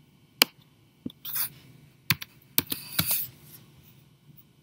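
Computer keyboard keystrokes and clicks as a value is typed in: a handful of separate sharp taps spaced a half second to a second apart.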